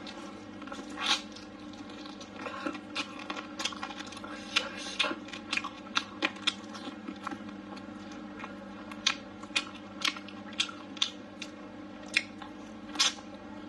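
Close-up eating sounds: chewing and wet mouth smacks on braised chicken wing meat, with many sharp, irregular clicks, the loudest about a second in and again in the last few seconds. A faint steady hum runs underneath.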